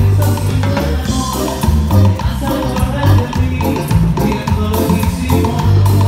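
Live band playing Latin dance music through a loud stage PA: a heavy, repeating bass line with keyboards and percussion.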